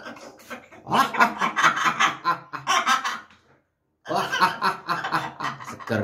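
Blue-and-gold macaw imitating human laughter: a long run of laughs, a short pause, then more laughing.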